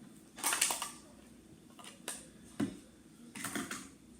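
A small plastic eyelash washing machine being handled: a rustle and a few light clicks and taps, with a short cluster of them near the end.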